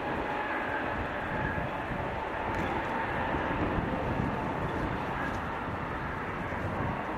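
Jet engines of an Airbus A321neo, Pratt & Whitney PW1100G geared turbofans, running as the airliner rolls along the ground. A steady rush carries a thin engine whine that rises slowly in pitch.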